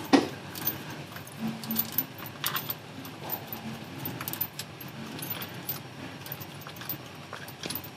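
Scattered light metallic clicks and clinks as a transmission mount's metal bracket and studs are handled and lined up against the gearbox underside.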